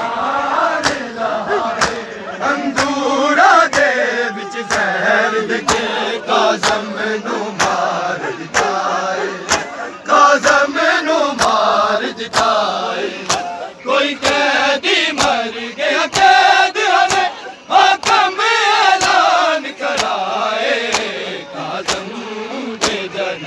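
Men's voices chanting a noha in unison, with sharp, evenly timed slaps of hands on bare chests (matam) about twice a second.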